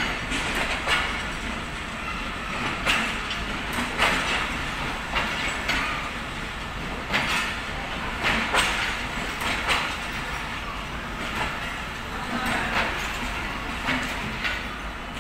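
Pakistan Railways passenger coaches rolling past as the train departs, their wheels clacking over the rail joints, a knock every second or so over a steady rolling rumble.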